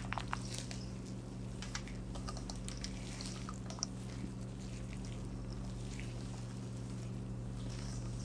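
Spatula folding toasted walnuts and chocolate chips into a stiff batter in a bowl: scattered soft scrapes and small clicks over a steady low hum.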